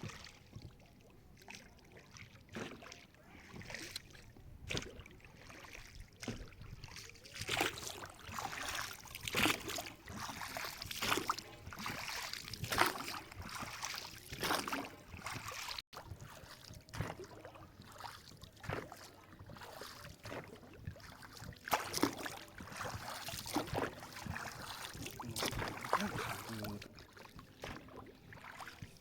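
Water lapping and splashing in irregular strokes, like paddling or small waves against a boat or shore, with a brief dropout about halfway through.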